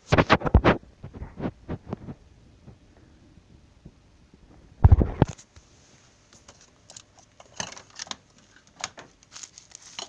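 Handling noise from a handheld camera being moved about: a quick run of clicks and knocks, one heavy low thump about five seconds in, then scattered lighter clicks near the end.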